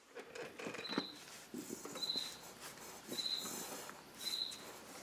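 Soft handling and squishing noises as gear oil is squeezed from a plastic bottle up into an outboard motor's lower unit through the drain hole. A short high chirp repeats about once a second in the background.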